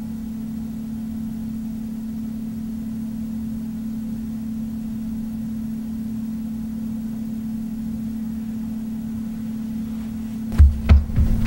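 A steady low hum at one even pitch, with a few dull thumps near the end.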